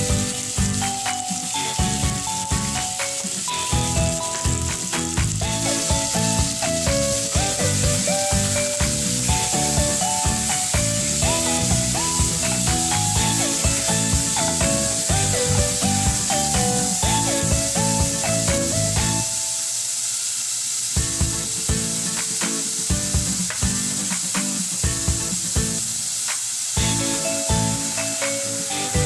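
Meat sautéing in a saucepan, with a steady sizzle throughout. Background music with a melody and a steady beat plays over it, pausing briefly about two-thirds of the way in.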